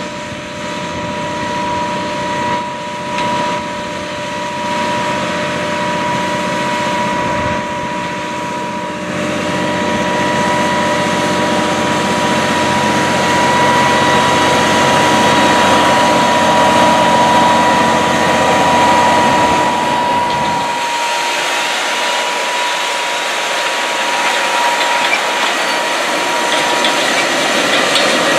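Case IH Steiger 420 four-wheel-drive tractor's diesel engine running under load as it pulls a 16-row corn planter across the field, with a steady high whine over the engine. The sound grows louder as the tractor comes close.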